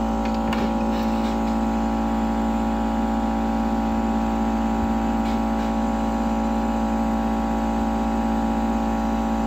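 Hot air rework station running: a steady electrical hum made of several constant tones over a low rumble, with a few faint clicks about half a second in.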